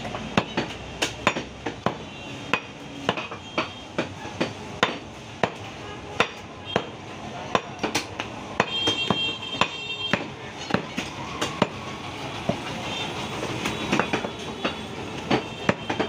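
Heavy butcher's knife chopping raw beef on a wooden log chopping block, sharp chops at about two a second in a steady rhythm.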